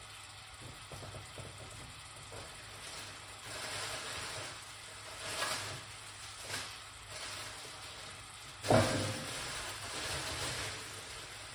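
Onions, carrots and garlic sizzling gently in a pot on an electric hotplate, swelling a little a few times, with one sharp knock about nine seconds in.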